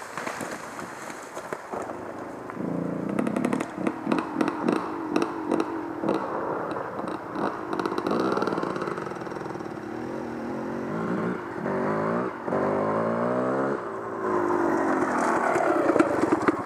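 Enduro motorcycle engine running at low revs down a steep trail, with repeated throttle blips and a rise in revs past the middle. Stones and the bike's chassis clatter and scrape throughout.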